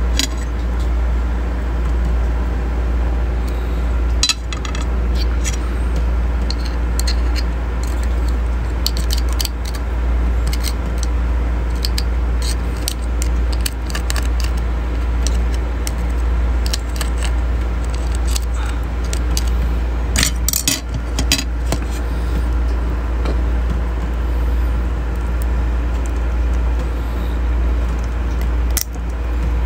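Small shells of freshwater crabs (talangka) cracking and clicking as they are pulled apart by hand over a plate, with scattered light taps and scrapes on the plate. A steady low hum runs underneath.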